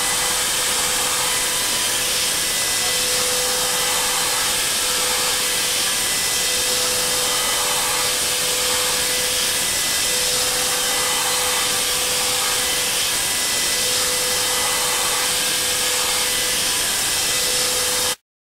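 High-speed milling spindle and cutter cutting hardened HRC40 tool steel: a steady high hiss with a constant whine, swelling slightly about every two seconds as the cutter passes. It cuts off suddenly near the end.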